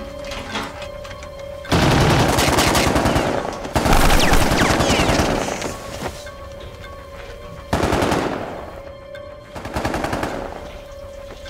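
Machine-gun fire in four bursts: two long bursts of about two seconds each, the second the loudest, then two shorter ones.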